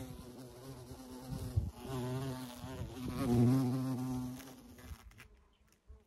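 A flying insect buzzing in three spells, a steady low drone that wavers slightly in pitch; the last spell is the loudest and stops about four and a half seconds in.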